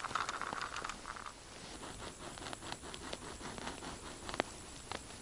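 Light rustling and scattered small clicks from a gloved hand and winter clothing working a short ice-fishing jigging rod. There is a brief rustle in the first second and one sharper click a little after four seconds.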